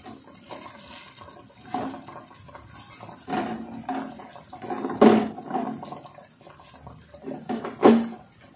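Sinigang broth boiling in a stainless steel pot of fish and water spinach, bubbling and gurgling irregularly, with louder gurgles about five and eight seconds in.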